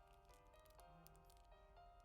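Faint background music of sustained, chiming chords that shift every half second or so, with light clicks over it.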